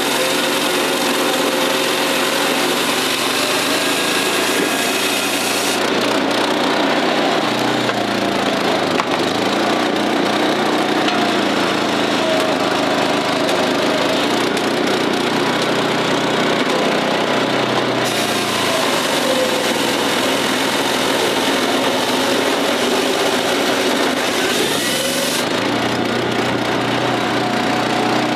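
A 15-ton wood processor running under load: its 13-horsepower engine drives the saw and hydraulic splitter at a steady note that rises and falls at times, while logs are cut and rounds crack apart on the splitting wedge.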